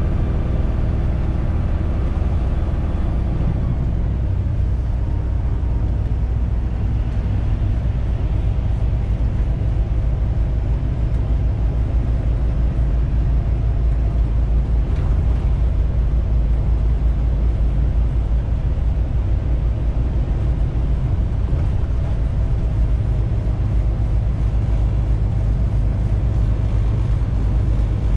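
Tractor-trailer's diesel engine running steadily with tyre and road noise, heard from inside the truck's cab while driving. A set of engine tones is stronger for the first few seconds, then fades into the steady drone.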